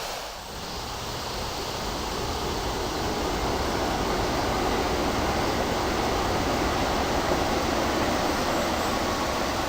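Steady rushing of flowing river water, dipping briefly about half a second in and then building over the next few seconds.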